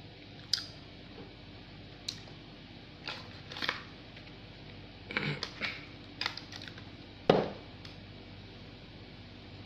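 Handling noises from small skincare items at a table: scattered light clicks and taps, a quick run of them midway, and one louder knock about seven seconds in.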